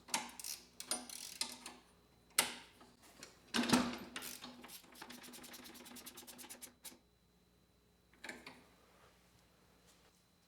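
Hand tools working bolts on a lawn mower handle: scattered metal clicks and a couple of sharp knocks, then a ratchet wrench clicking rapidly and evenly for about two seconds, some five seconds in.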